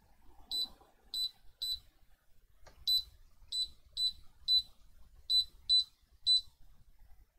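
Lowrance HDS12 Gen 2 chartplotter giving about ten short, high beeps in an uneven rhythm while its touchscreen is tapped. The touchscreen is not responding properly after water damage.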